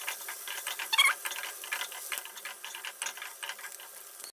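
Wooden spatula stirring diced vegetables in oil in a kadai: a quick, irregular run of small clicks and scrapes against the pan, with light crackling from the frying.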